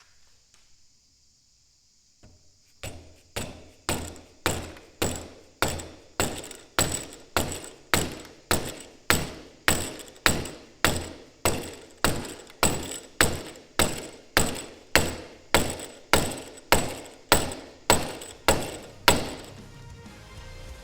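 Mallet striking a chisel in steady, evenly spaced blows, a little under two a second, each sharp with a short ringing decay. They start about three seconds in and stop shortly before the end.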